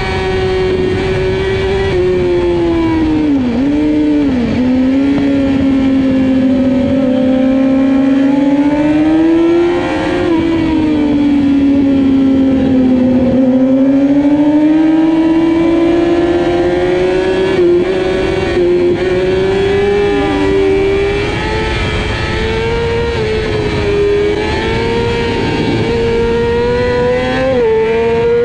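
Racing sportbike engine heard from on board at high revs, with wind rush over the microphone. The engine pitch dips twice in quick succession about three to four seconds in, as on downshifts under braking. It rises to a peak about ten seconds in, sags for a few seconds, then climbs slowly in small steps through the gears.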